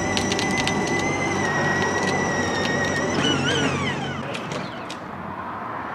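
Electric motor and gearbox of a modified Power Wheels ride-on toy car whining at a steady pitch, with some clicking in the first second; about three seconds in the whine falls in pitch over about a second as the car slows to a stop.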